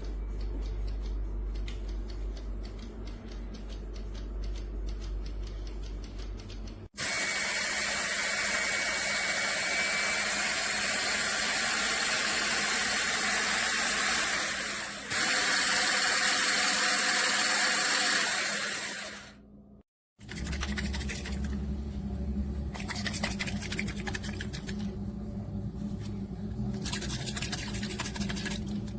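Small electric motor running in three stretches with abrupt cuts between them: a low hum with rapid clicking, then a loud steady whir for about twelve seconds, then a low hum with rattling.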